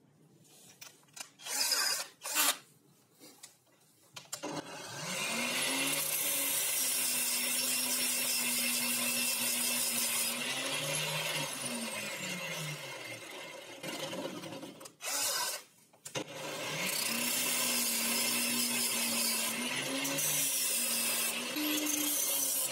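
A cordless drill spins a steel bolt whose end is pressed against an angle grinder's abrasive disc, grinding the metal. There are two long runs of motor sound with a grinding hiss, each with the motor pitch rising at the start and falling at the stop. A few clicks of handling come before the first run.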